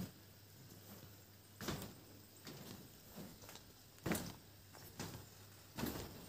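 Faint, irregular footsteps and light knocks, a second or two apart, of someone walking across tied steel rebar mesh laid over floor formwork.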